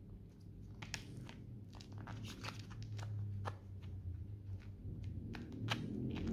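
Close handling noise from gloved hands working at skin and duct tape: irregular crinkles, rustles and small clicks over a low steady hum.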